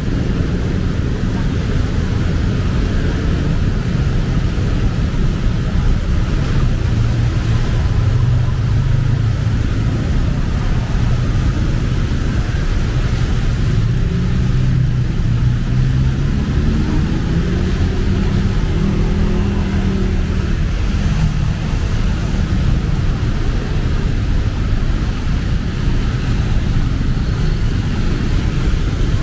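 City road traffic: vehicle engines running and passing, one engine's pitch rising and falling about halfway through over a steady low rumble.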